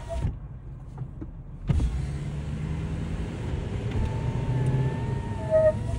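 Cabin of a 2017 Lexus LC 500 on the move: steady road and drivetrain noise, and from about four seconds in a thin high squeak that rises slightly, with a short sharper squeak near the end. It is the brake squeak that comes after the brake is pushed hard and released, which the owner was told comes from an ABS sensor.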